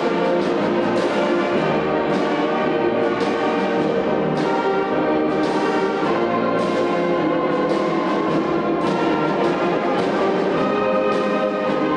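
Brass band music playing, with a sharp beat about once a second.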